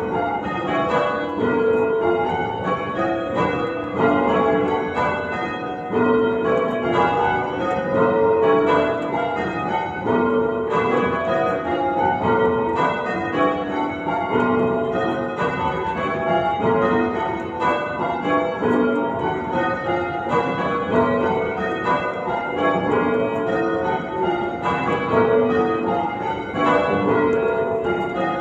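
Full-circle church tower bells in change ringing: an unbroken, even stream of bell strikes, each bell sounding in turn, with their overlapping ring carrying under the next strokes.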